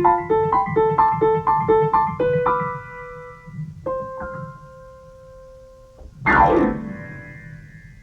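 Yamaha Piaggero NP-12 digital keyboard played with a piano voice, improvising. It plays a run of repeated notes, about two or three a second, then a couple of held notes that die away, and a quick downward glissando about six seconds in.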